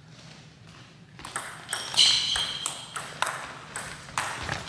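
Table tennis rally: the ball ticks sharply off the bats and bounces on the table, about ten quick clicks in an uneven rhythm starting about a second in.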